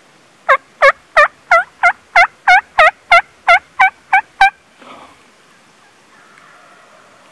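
Elk diaphragm mouth call blown as a turkey call: a run of about a dozen loud yelps, about three a second, that then stops. The elk reed makes the yelps sound weird for a turkey.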